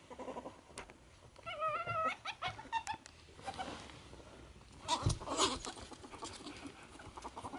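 Two ferrets wrestling: scuffling, runs of quick short clucks (dooking), a brief wavering squeal about a second and a half in, and a thump about five seconds in.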